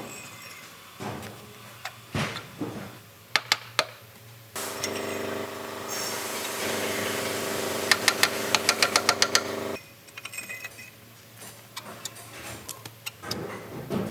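Metal parts clanking and knocking during engine work, then a power tool's motor runs steadily for about five seconds, starting and stopping abruptly, with a quick run of about ten sharp strokes near its end.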